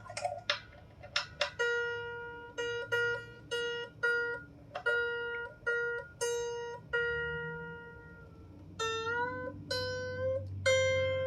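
A 16-string lyre harp being tuned: one string plucked over and over on the same note, with its pitch sliding upward about nine seconds in as the string is tightened.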